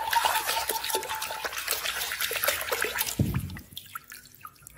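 A hand sloshing and swishing muddy water around in a plastic basin, with splashes. About three and a half seconds in the sloshing dies down to a few drips as a wet toy train engine is lifted out of the water.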